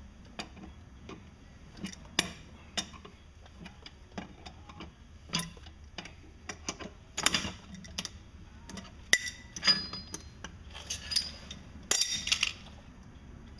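Irregular metal clicks and clinks from an adjustable wrench working the nut of a bearing puller as it draws the old gimbal bearing out of a MerCruiser Bravo gimbal housing. Bursts of louder metallic clatter come about halfway through and again near the end, as the bearing comes free.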